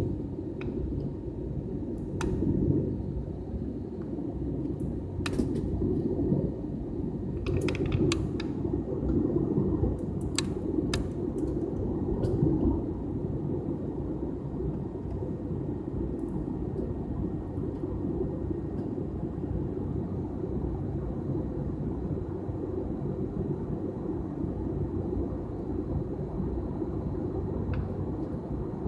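Steady low rumble of airliner cabin noise, the drone of engines and airflow heard from inside the plane. A few sharp clicks or knocks come in the first dozen seconds or so.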